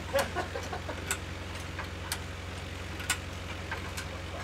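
Tractor engine idling steadily, with a sharp tick about once a second.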